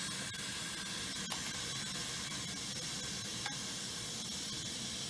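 Gas stove burner burning low under a lidded pot, a steady hiss, with a couple of faint ticks.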